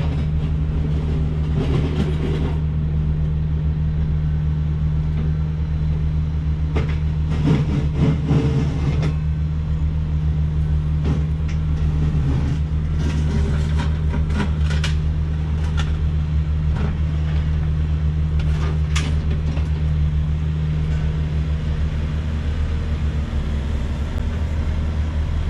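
Heavy diesel construction equipment running steadily nearby, a deep continuous engine drone, with scattered knocks and clanks from the machines at work.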